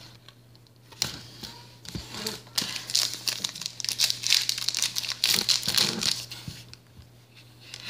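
Crinkling and tearing of a Dragon Ball Z card booster-pack wrapper being handled and torn open, a dense crackle that starts about a second in and thins out near the end.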